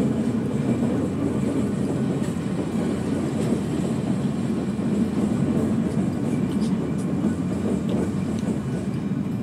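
A train running with a steady rumble, and now and then a faint click of camera shutters.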